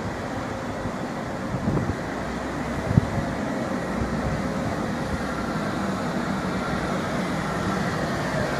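Train running with a steady rumble that grows slowly louder, a single knock about three seconds in and a faint whine coming in near the end.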